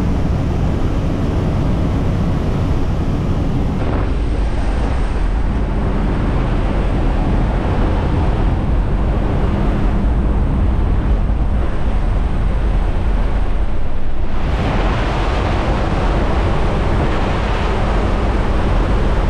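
Jump plane's engine and propeller drone, heard from inside the cabin during the climb to altitude, a steady low hum under a loud rush of noise. About fourteen seconds in the rush gets brighter and a little louder.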